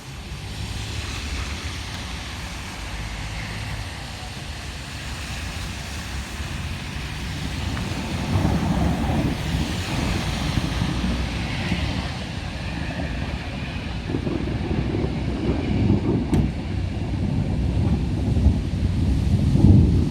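Storm wind gusting and buffeting the microphone, a low, uneven rush that grows louder toward the end.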